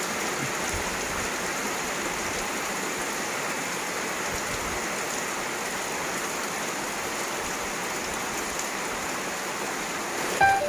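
Heavy rain falling steadily on trees and leaves, an even hiss with no breaks. Music comes in just before the end.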